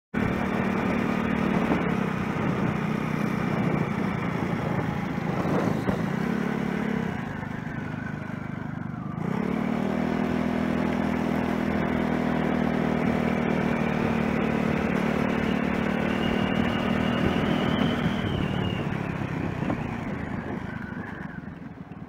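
Motorcycle engine running at riding speed with a steady note. It eases off about seven seconds in, picks up again just after nine seconds, and fades as the bike slows near the end.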